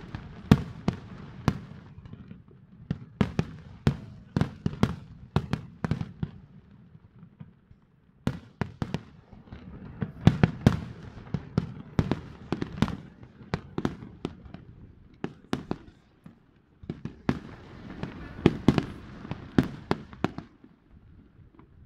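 Aerial firework shells bursting in rapid volleys: dozens of sharp bangs, overlapping at times, with two short lulls, tailing off near the end.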